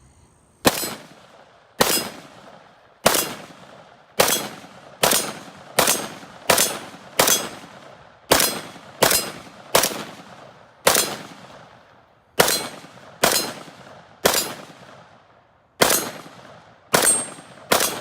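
About nineteen single shots from a CZ 805 Bren pistol in 5.56 mm, fired semi-automatically at an uneven pace, at times about two a second. Each is a sharp, loud crack with a short echo trailing off behind it.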